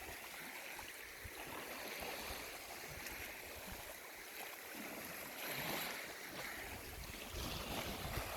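Lake Superior waves washing against the rocky shore, a steady wash that swells about five seconds in.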